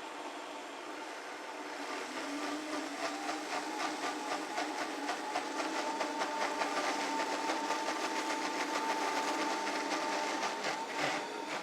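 Blender running, blending pancake batter. About two seconds in it gets louder, with a steady whine and a fast, even rattle.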